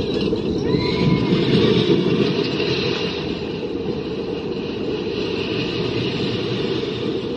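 Steel roller coaster train running along its track: a steady rumble of wheels on steel rails, loudest a second or two in.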